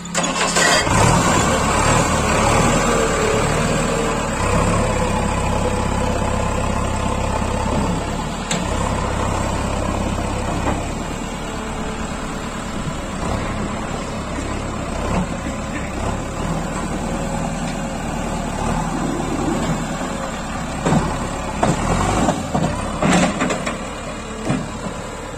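JCB backhoe loader's diesel engine running steadily, a little stronger in the first half. A few sharp knocks come near the end.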